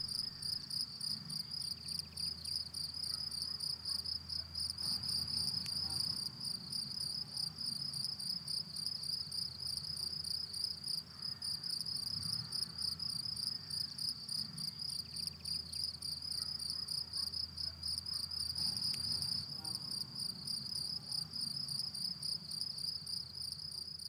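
Cricket chirping steadily in a meadow: a high-pitched, evenly pulsed song of a few chirps a second that goes on without a break.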